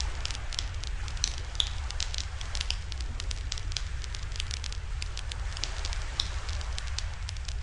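Wood campfire crackling, with many sharp pops in quick, irregular succession over a steady low rumble.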